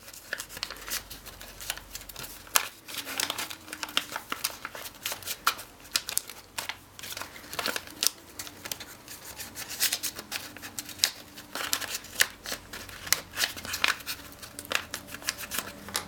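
Origami paper crinkling and crackling as it is pressed and creased by hand to sharpen the folds and corners of a paper box lid. The sound is a dense, irregular run of short clicks and rustles.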